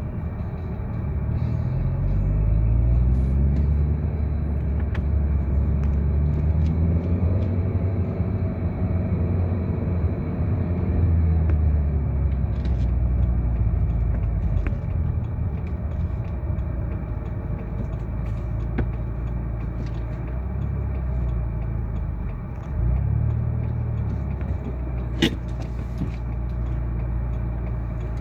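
Running road vehicle's engine and road rumble while travelling. The engine note climbs steadily over the first ten seconds or so, then dips and rises again a little after twenty seconds, with a single sharp click near the end.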